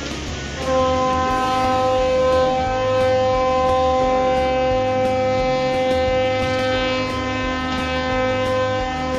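Ship's horn sounding one long steady blast that starts about a second in, right after an earlier blast cuts off, over a low rumbling rush of water churned along the hull of a ship being launched.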